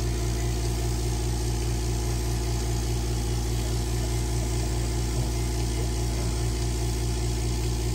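Vevor electric milking machine's vacuum pump running with a steady hum and a fast, even flutter.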